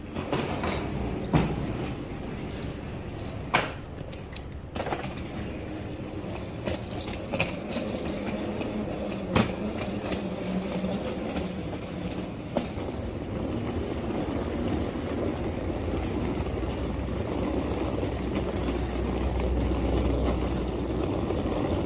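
Railway platform ambience with a train's engine running: a steady hum under a low rumble that grows louder in the last few seconds, with a few sharp clicks and knocks scattered through it.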